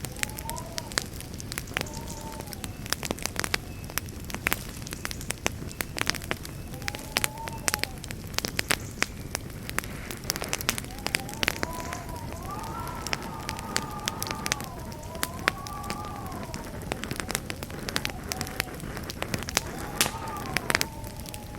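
Campfire burning, with dense irregular crackles and sharp pops over a steady hiss. A thin wavering whistle comes and goes, most of all in the second half.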